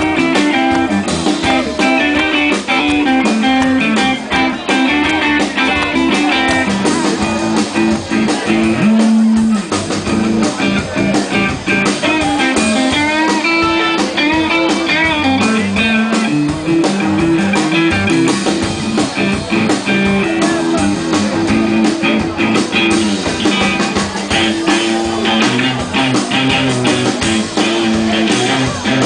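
Live blues-rock band playing: electric guitar over a drum kit and a steady low line, loud and continuous.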